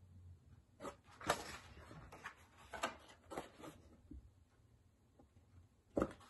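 Sheets of watercolor paper rustling as they are lifted, held up and swapped, in several short rustles, the loudest about a second in and near the end.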